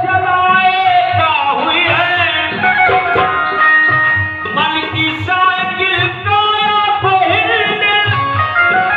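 Music: a voice singing a melody over a steady hand-drum rhythm.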